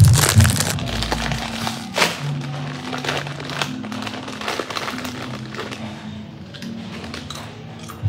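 Doritos foil chip bag crinkling and crackling as it is handled and opened, the rustling densest in the first two seconds, with background music underneath.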